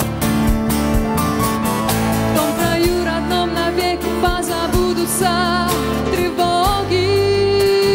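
Instrumental break of a Christian pop song: a lead melody with vibrato over a steady drum beat, bass and sustained chords.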